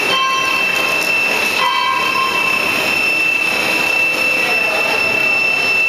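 Plastic sheet extrusion and roll-winding machine running: a steady, loud mechanical noise with a constant high-pitched whine. Twice in the first couple of seconds a brief squeal-like tone sounds.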